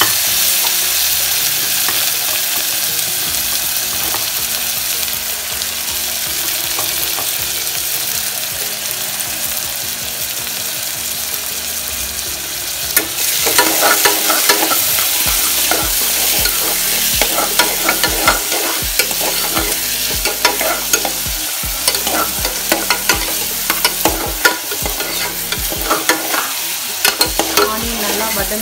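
Chopped onions sizzling in hot oil in an aluminium pressure cooker, a steady hiss. About halfway through, a metal spoon starts stirring them, scraping and clicking against the pot over the sizzle.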